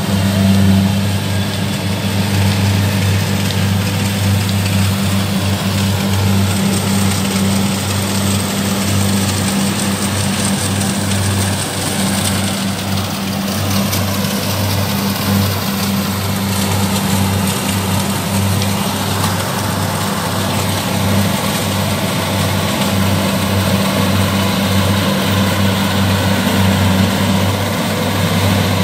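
Kubota DC70 rice combine harvester's diesel engine running steadily under harvesting load, with a deep, even hum.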